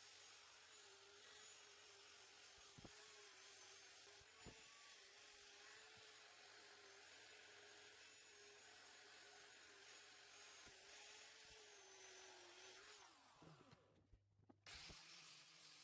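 Evolution electric belt file sander running with a faint, steady whine; it winds down about 13 seconds in, and a low hum starts near the end.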